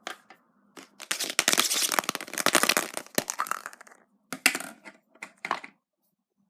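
A foil-wrapped chocolate surprise egg being unwrapped and broken open by hand: dense crinkling and cracking for a couple of seconds, then a few separate snaps.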